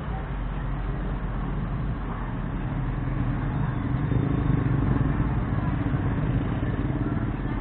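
A motor vehicle's engine running, a low rumble that grows louder about halfway through and eases off near the end.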